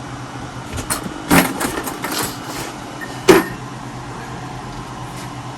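Objects clattering and knocking as tools are handled, with a run of small knocks and one sharp, louder knock about three seconds in, over a steady low hum.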